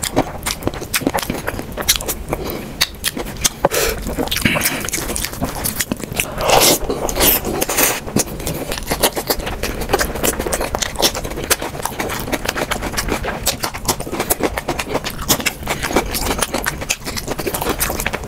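Close-miked eating: wet chewing and lip smacking on saucy chicken and rice, with squelching as fingers mix rice into curry gravy, in a dense run of small wet clicks. A louder stretch comes about six seconds in.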